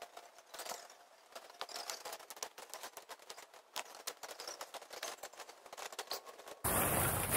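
Irregular small clicks and rustles of a dome tent being pitched by hand, with footsteps on a dirt path. About six and a half seconds in, the sound jumps abruptly to a loud steady hiss with a low hum.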